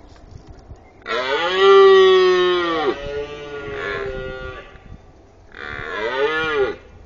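Red deer stag roaring during the rut: a long, loud roar starting about a second in that trails off, then a second, shorter roar near the end.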